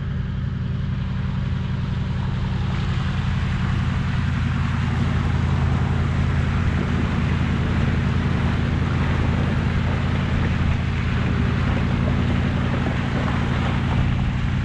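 Four-wheel drive's engine running steadily on the move, with a rush of tyre and wind noise that builds over the first few seconds.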